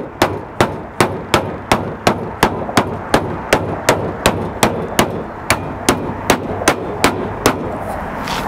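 Hammer tapping on the sheet-metal flashing of a dormer roof vent in a steady run of sharp strikes, about two or three a second, stopping shortly before the end. The strikes are bending the vent's upturned lips down flat so that shingles will lie flat over them.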